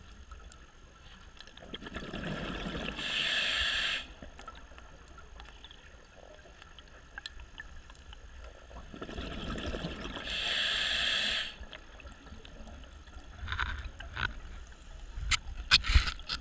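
Scuba diver breathing through a regulator underwater: two breaths about seven seconds apart, each a rush of bubbles and a loud hiss lasting a second or so. A few sharp clicks near the end.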